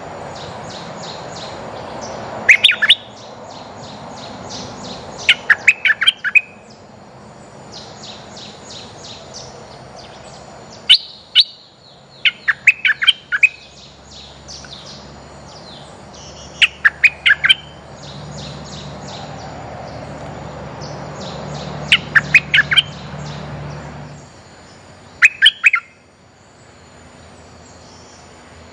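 Merbah lekir bulbul song used as a trapping lure: loud short phrases of three to five quick, sharp notes, repeating every few seconds, over a steady background of rapid high chirping.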